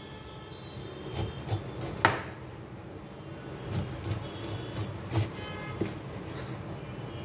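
A large steel knife cuts the rind off a whole pineapple on a wooden chopping board: scraping cuts through the tough skin and scattered knocks of the blade against the board, the sharpest about two seconds in.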